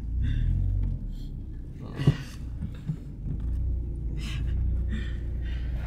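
Low, steady rumble of a car's cabin on the move, with a brief vocal sound about two seconds in and a few soft rustles.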